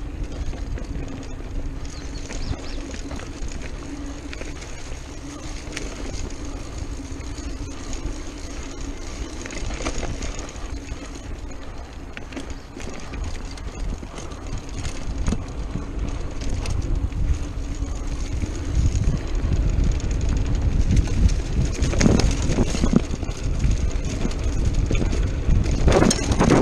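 Mountain bike ridden fast along a dirt singletrack: wind buffeting the microphone, tyres rumbling over the trail and the bike knocking and rattling over bumps. It grows louder in the second half as the speed picks up.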